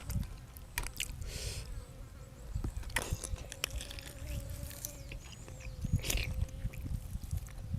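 Eating sounds: irregular chewing with scattered short clicks and taps, two of them sharper about three and six seconds in, over a faint steady hum.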